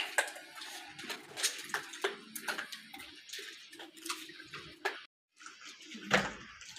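Irregular small clicks and taps of gray langurs picking scattered grain off a concrete floor. A louder low thump comes about six seconds in.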